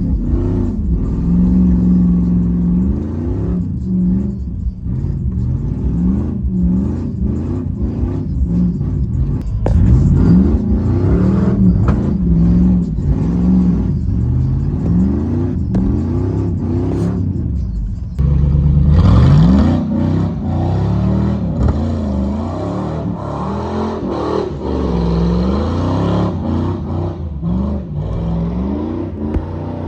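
Car engine revving up and falling back again and again, with a sudden louder hard acceleration about two-thirds of the way through.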